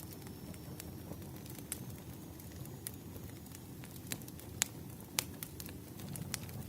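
Wood fire burning: a steady low rumble with irregular crackles and sharp pops from the burning logs, a few of them louder snaps.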